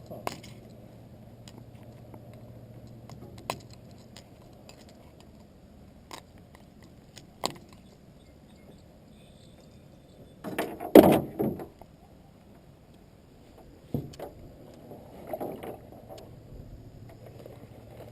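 Knocks and clicks of gear against a fishing boat's hull, with a louder cluster of knocking about eleven seconds in, over a steady low hum during the first few seconds.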